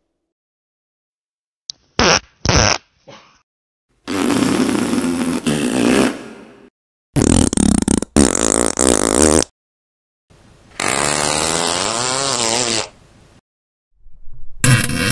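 A series of separate fart sounds. First come a few short pops about two seconds in. Then come longer ones lasting two to three seconds each, several with a wavering, quivering pitch. The last begins near the end.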